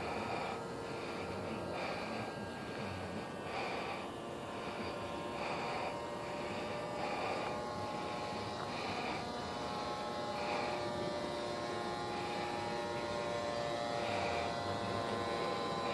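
Motor of a radio-controlled Cessna 182 model airplane in flight, a steady drone of several tones that drift slightly in pitch as the plane moves.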